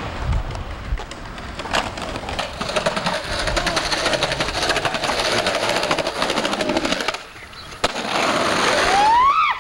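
Skateboard wheels rolling over rough pavement: a steady rolling noise peppered with many small clicks, dropping off about seven seconds in. A person's rising shout near the end.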